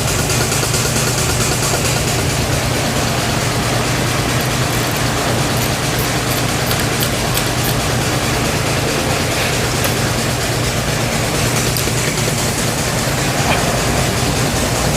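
Steady machine running noise: a constant low hum under an even hiss, with a few faint ticks about halfway through.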